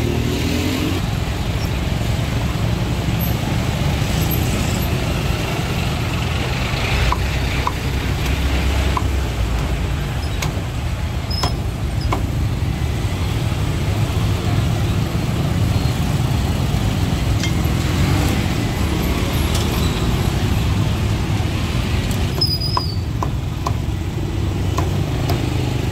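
Steady low rumble of road traffic, with scattered sharp knocks of a cleaver chopping roast pork on a thick wooden chopping block, a cluster in the middle and a few more near the end.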